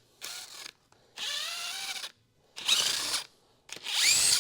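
Hand-held power tool running in four short bursts, spinning out valve cover bolts on a Ford 300 inline-six; the last burst starts with a rising whine and is the loudest.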